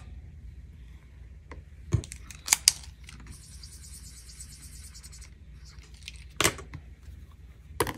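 Tabletop handling: a few scattered sharp taps and clicks, and a scratchy rasp of paper being worked lasting about two seconds near the middle.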